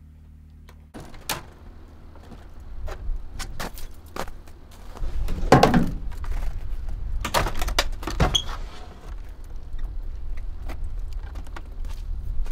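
A snowboard and gear being handled against the back of a pickup truck camper: a run of knocks, clicks and clatters, the loudest about five and a half seconds in and again around seven and eight seconds.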